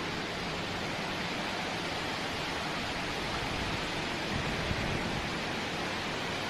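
Heavy rain pouring down in strong wind: a dense, steady hiss.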